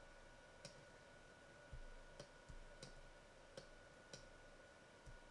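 Computer mouse button clicking faintly, about eight irregular clicks while mesh points are selected and dragged, over a faint steady high tone.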